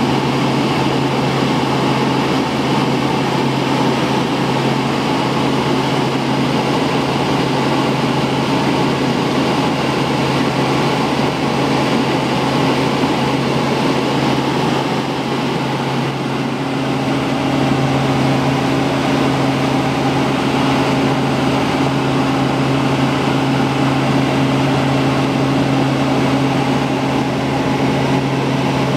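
Steady drone of a light helicopter's engine and rotors heard from inside the cabin, with a strong low hum; a second, higher hum joins a little past halfway.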